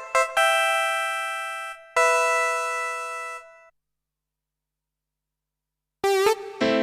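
Korg Kross 2 keyboard playing short cumbia chord stabs, then two held chords that fade away. After about two seconds of silence, a monophonic synth lead comes in near the end with wavering, bending pitch.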